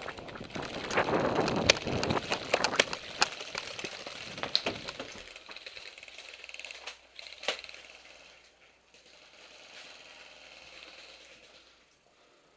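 An airsoft player's running footsteps and rattling gear with sharp clicks, busy for about five seconds. It then goes quiet, with one lone click about seven and a half seconds in.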